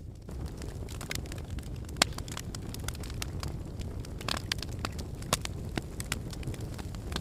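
Fire burning in a fireplace: a steady low rumble of flames with frequent sharp crackles and pops, one louder pop about two seconds in and a brief hiss a little past four seconds.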